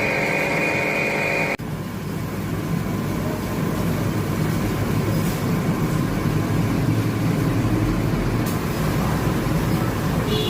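A machine running: a high steady whine that cuts off sharply about a second and a half in, followed by a steady rumbling mechanical noise.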